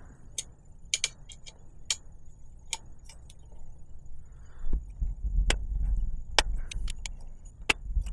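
Metal hand tools clicking and ticking as a rivnut setter bolt is turned with wrenches to draw a rivnut tight into a bike frame: about a dozen sharp, irregular clicks, with low handling rumble in the second half.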